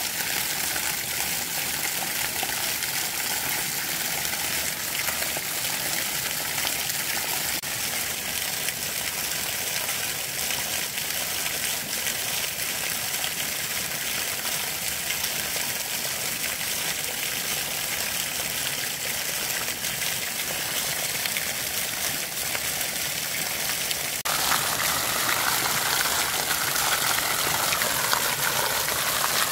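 Steady rush of running water. About 24 seconds in it switches to a louder, brighter spray of water gushing from a pipe and splashing onto rock.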